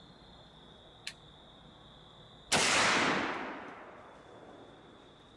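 A .50-caliber muzzleloader fires once about two and a half seconds in: a loud crack whose echo rolls away through the woods over about a second and a half. A faint click comes about a second in, and a steady high-pitched insect drone runs underneath, briefly silenced after the shot.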